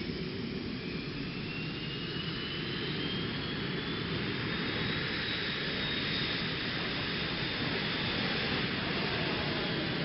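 Military jet trainer's jet engine at takeoff power as it rolls down the runway and lifts off: a continuous rush of jet noise that grows slightly louder, with a thin whine that rises in pitch over the first five seconds and then holds steady.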